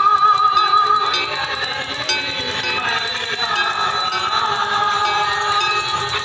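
Temple hand bells ringing rapidly and continuously for the aarti, over devotional aarti singing and music.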